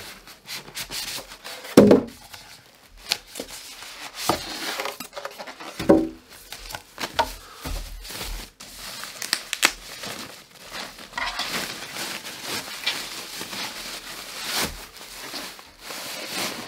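Packaging being pulled off and cleared away by hand: plastic crinkling and rustling, with many small handling clicks and two louder thumps, about two seconds in and again about six seconds in.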